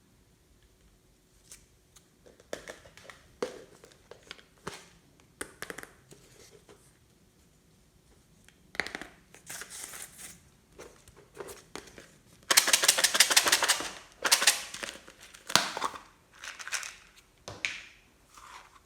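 Irregular crinkling and crackling from close handling of materials, with a dense, loud run of crackling about two-thirds of the way through.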